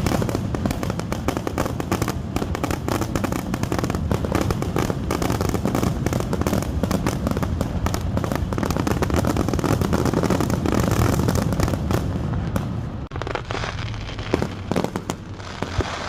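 Fireworks going off in a dense, continuous barrage of cracks and bangs, thinning to scattered separate bangs about twelve seconds in.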